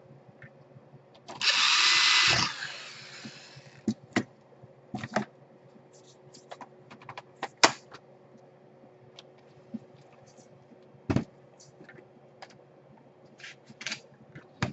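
Small electric screwdriver running for about a second, most likely driving a case screw during laptop reassembly. It is followed by scattered clicks and knocks from the plastic laptop parts being handled.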